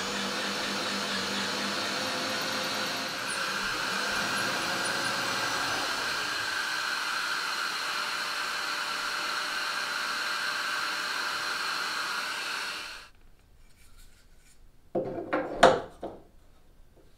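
Power drill spinning a 1 3/8-inch hole saw steadily through a boat gunwale, with light pressure as the saw finishes breaking through. The drill stops about 13 seconds in, and a few sharp knocks follow a couple of seconds later.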